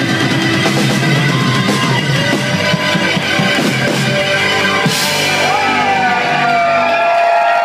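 Live new wave rock band playing with drum kit, guitars and synth. Near the end the drums and bass drop away and a held chord rings out as the song ends.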